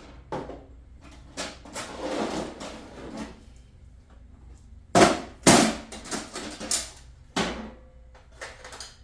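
Hand tools being handled on a workbench while a smaller file is fetched: scattered metal clinks and knocks, with a short scrape about two seconds in. The two loudest knocks come about five seconds in, half a second apart.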